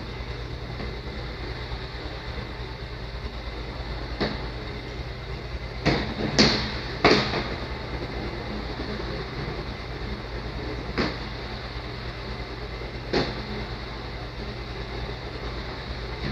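Gravity-demonstration machine running, a steady mechanical hum and rolling noise as its launched metal ball circles an elliptical orbit, broken by sharp clacks: one about four seconds in, three in quick succession around six to seven seconds, and two more later.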